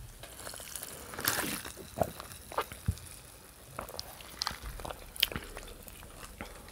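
Close-miked eating and drinking mouth sounds: chewing, scattered clicks and smacks of the lips and tongue, and a sip through a straw from an iced drink.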